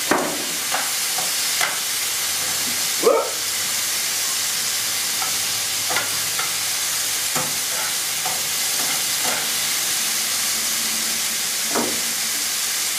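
Wild boar loin pieces sizzling in coconut oil in a frying pan, with a steady hiss. A utensil scrapes and taps the pan now and then as the meat is stirred, the loudest scrape about three seconds in.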